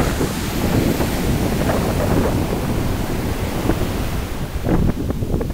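Ocean surf breaking and foam washing up the sand at the water's edge, with wind buffeting the microphone.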